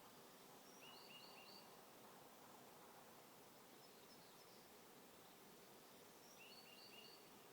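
Near silence outdoors, with a small bird's faint short call of three quick high notes about a second in and again near the end.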